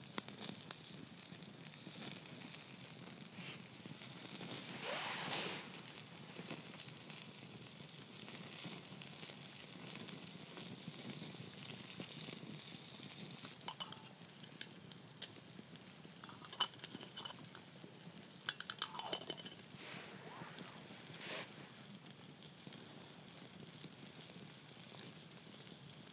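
Bacon sizzling in a wire grill over a wood campfire, with small crackles from the fire and a few light metallic clinks of the grill in the second half.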